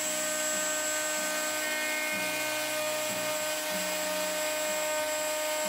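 Table-mounted router spinning a 1/8-inch-radius bead-molding bit with a steady whine, cutting a bead into the edge of a cherry board as it is fed along the fence.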